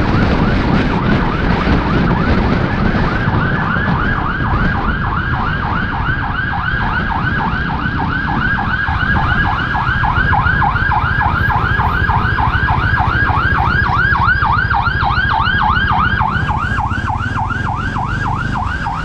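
Ambulance siren in a fast yelp, a warbling tone sweeping up and down several times a second. Steady road and engine rumble runs underneath, and the siren comes through more clearly a few seconds in.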